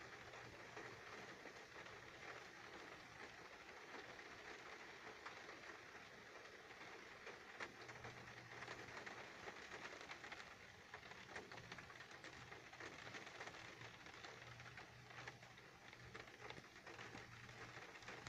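Faint rain pattering on a car's windshield and roof, heard from inside the car as a soft hiss with many small, irregular drop ticks.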